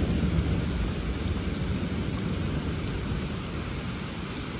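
Steady rain falling on a patio and fallen leaves, an even hiss with no separate events.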